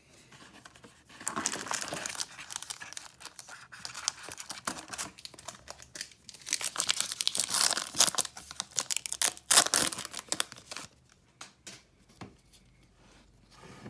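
A trading card pack's wrapper being torn open and crinkled by hand, in irregular bursts of crinkling that are loudest in the second half and stop shortly before the end, leaving a few light clicks.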